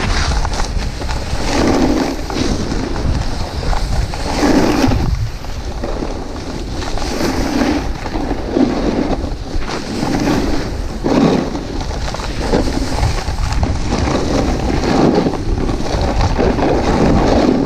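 Snowboard base and edges scraping over icy, hard-packed snow, with wind rushing over the microphone. The scraping swells and fades every second or two.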